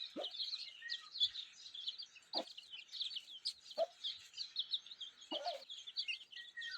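Aseel hen clucking about four times, each a short dropping call, over a continuous rapid high-pitched cheeping of chicks.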